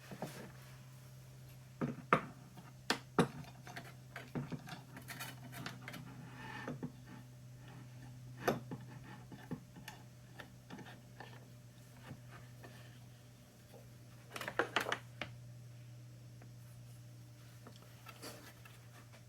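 Scattered clicks, knocks and taps of clamps, door hinges, a wooden board and thin stainless steel sheet being handled and positioned on a workbench, with a short flurry of knocks about three-quarters of the way through. A steady low hum lies underneath.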